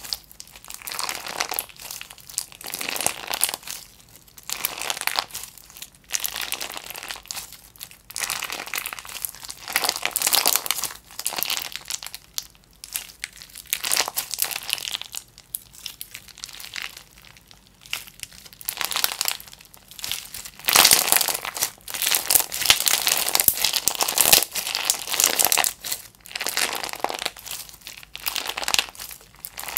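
Clear-base slime packed with small white heart-shaped pieces, squeezed, stretched and folded by hand. It gives sticky crackling and crinkling crunches in repeated bursts every second or two, loudest a little past the middle.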